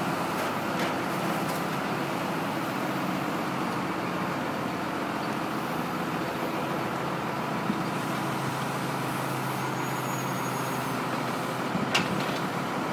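Truck engine running steadily, driving a knuckle-boom log crane that holds a strapped tree-trunk section over the truck bed. A single sharp click sounds near the end.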